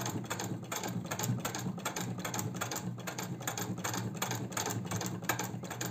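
Singer 66 horizontal-shuttle sewing machine, with no electric motor, stitching through 6 mm of folded shoe leather: a steady run of quick, even mechanical clicks, several a second. Piercing the leather is heavy, but the flywheel's inertia carries the machine through and it sews easily.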